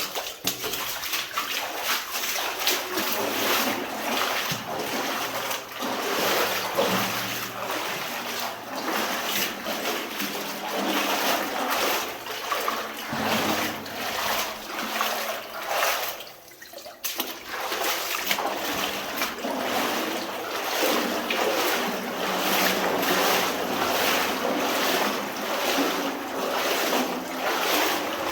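A person wading through flood water, with continuous irregular splashing and sloshing of each stride, and a brief lull about sixteen seconds in.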